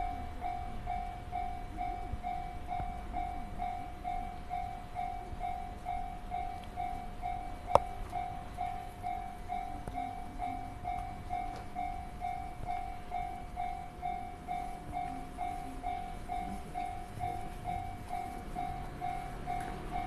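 Japanese railway level-crossing warning bell ringing in an even, repeating pattern, about two strokes a second, while the crossing is closed for an approaching train. One sharp click sounds about eight seconds in.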